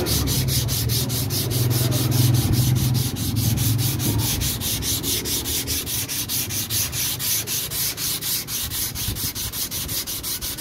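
Sandpaper dry-sanding cured body filler on a car fender by hand, in quick, even back-and-forth strokes, held flat with light pressure to knock down a high spot. A low hum sits under the first few seconds.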